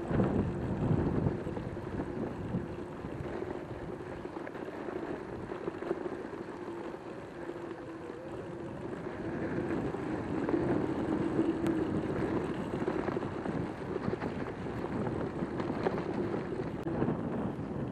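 Joyor S10S electric scooter riding over grass: a steady whine from its electric hub motors under the rolling noise of the tyres, with wind buffeting the microphone.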